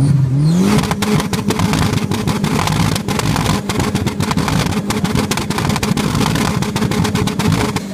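Dodge SRT-4's turbocharged four-cylinder revved up and held high, its exhaust crackling and popping rapidly with backfires. The revs rise in the first second, and the pops run on almost to the end.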